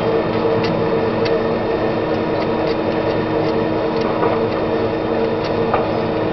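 Diesel engines of heavy logging machinery running steadily, a constant even drone with a few light clicks.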